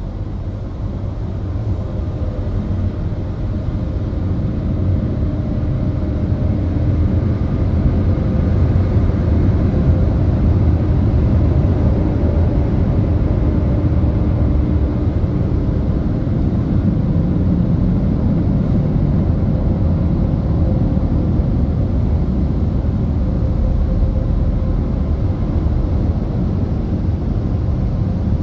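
Overhead air-dryer blowers of an automatic car wash tunnel running steadily, a deep rush of air with a faint hum, growing louder over the first several seconds and then holding. Heard from inside a car's cabin.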